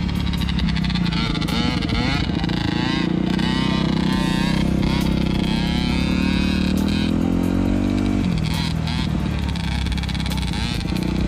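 Dirt bike engine running under throttle, its pitch climbing slowly and then dropping suddenly about eight seconds in, as if shifting up a gear.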